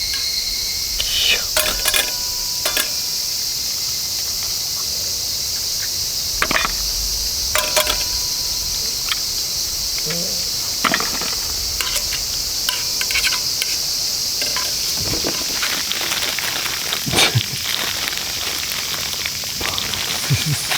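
Steady high-pitched chorus of crickets and other night insects, with scattered crackles and snaps from a campfire.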